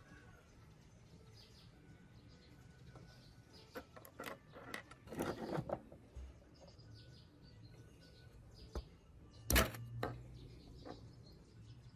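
Small die-cast and plastic parts of a toy motorcycle model clicking and knocking against each other and a wooden table as hands pull them apart: a cluster of clicks a few seconds in and one sharp knock, the loudest, past the middle. Faint birdsong behind.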